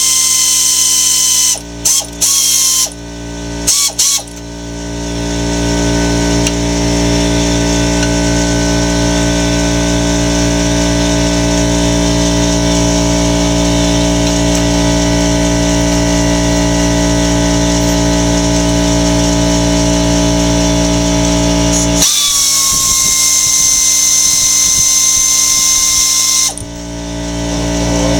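A power tool's motor running with a gear whine: several short trigger bursts, then a long continuous run that changes pitch about three-quarters of the way through and briefly drops off near the end before running again.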